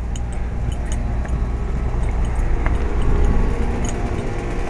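Luxaire Acclimate Series heat pump outdoor units running in cooling mode: a steady low hum from the compressor and condenser fan, with a few faint ticks.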